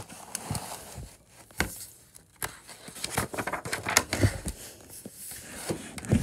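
A picture book being handled and opened: paper pages rustling and flipping in quick, irregular crinkles, with a few soft bumps of the book against the table.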